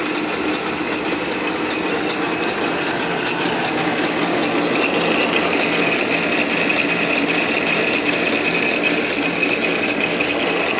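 Hendey engine lathe running under power, its headstock gearing and belt drive turning with a fast, steady mechanical clatter. A steady high whine grows stronger about halfway through.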